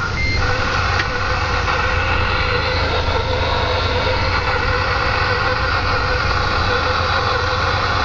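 Kenworth T2000 heavy truck heard from inside the cab while driving downhill: a steady diesel engine drone mixed with road noise.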